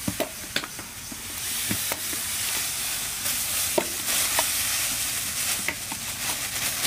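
Granulated sugar pouring from a sack into an aluminium pot: a steady hiss of falling grains that grows louder about one and a half seconds in, with a few short sharp sounds over it.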